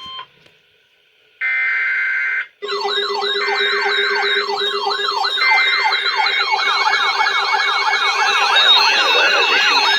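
An electronic alert siren: repeating rising-and-falling sweeps, about two a second, over a steady lower tone, growing denser as more sweeps layer in after a few seconds. It is preceded by a steady alert tone cutting off right at the start and a short buzzy burst of about a second.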